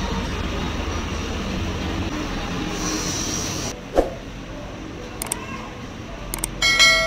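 Busy market background: a steady low hum and bustle, then a single knock about four seconds in, a few light clicks, and a short bright tone near the end.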